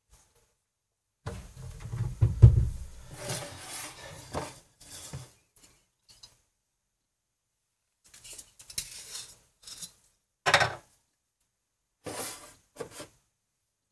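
Glass bottles and a shot glass being handled on a stainless steel counter. A few seconds of rustling and bumping with low thuds come first, then scattered light clinks and a few sharp knocks as glass is set down.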